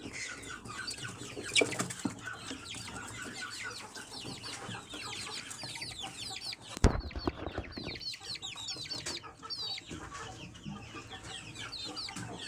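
A group of young Aseel chicks peeping continuously, many short downward-sliding cheeps overlapping. A single loud thump about seven seconds in.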